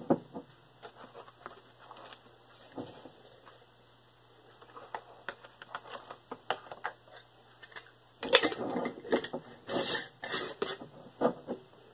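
White plastic measuring spoon scooping tomato powder from a glass mason jar, with light clicks and scrapes of spoon against glass. About eight seconds in, louder scraping and rustling sets in for a few seconds as the jar is handled.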